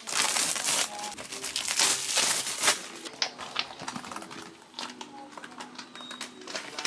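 Packaging crinkling and rustling as a plastic bath mat with suction cups is unwrapped and handled, loud and dense for about the first three seconds, then lighter rustles and scattered clicks.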